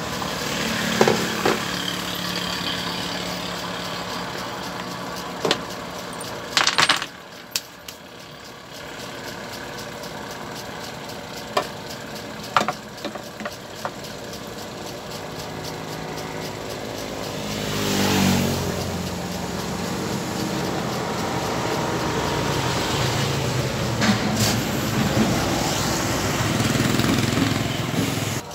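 A few sharp clicks and knocks as the plastic handle housing of an aluminium-cutting miter saw is opened and handled, most of them in the first half. Under them a steady engine-like hum runs throughout and swells, gliding in pitch, about two-thirds of the way through.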